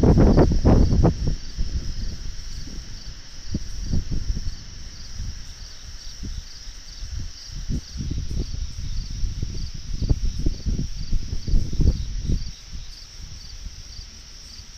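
Crickets chirring steadily with an even pulse, over irregular low rumbling that is strongest in the first second or so and dies down near the end.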